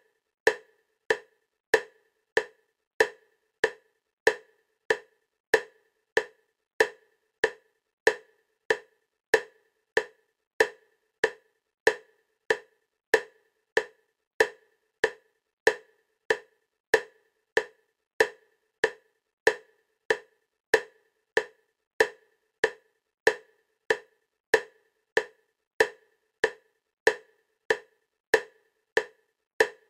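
Bilateral-stimulation clicks for EMDR, alternating side to side: short, sharp clicks at a steady 96 beats per minute, each the same pitch and loudness.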